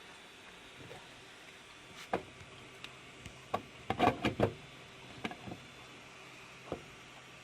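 A series of sharp clicks and knocks, loudest in a quick cluster about four seconds in, over a faint steady hum.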